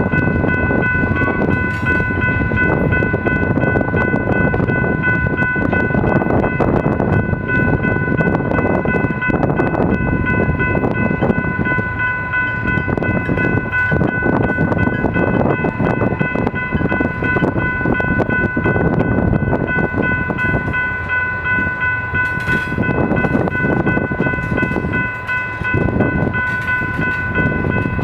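Tank cars of a freight train rolling past: a steady rumble and clatter of wheels on the rails, with a steady high-pitched squeal held over it.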